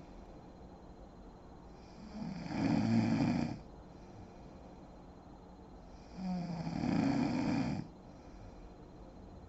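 A sleeping woman snoring: two loud snores about four seconds apart, each lasting about a second and a half and opening with a short buzzing tone before a rasping breath.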